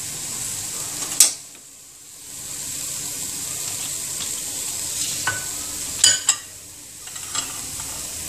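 Hot mustard oil with dried red chillies and chopped garlic sizzling steadily in a pot while it is stirred with a spatula. There is a sharp knock about a second in and two more around six seconds, and the sizzle dips briefly after each.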